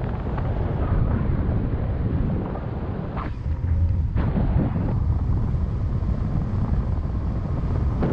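Wind buffeting the action camera's microphone in paragliding flight: a loud, uneven low rumble, with a couple of brief rustles about three and four seconds in.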